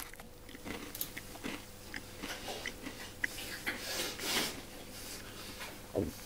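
Crumbly food being crunched and crumbled, a run of small crackling clicks, with a low thud near the end.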